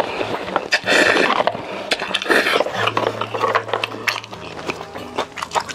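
Close-miked chewing and crunching of crispy-skinned roast chicken with scorched rice, in quick irregular crunches.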